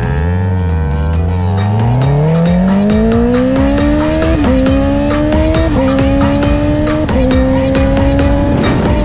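Honda CB650R inline-four with an Akrapovic exhaust under hard acceleration: revs climb through one gear, then three quick upshifts about a second and a half apart, each a brief drop in pitch before the engine pulls up again, typical of quickshifter shifts. Background music with a steady beat plays over it.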